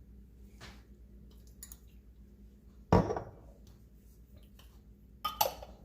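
A utensil knocks once against a dish about three seconds in, amid faint clinks, and then comes a short crunchy bite near the end.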